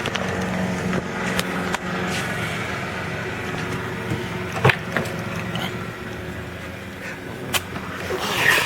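A steady low mechanical hum, typical of a car engine running, with a handful of scattered sharp clicks and knocks.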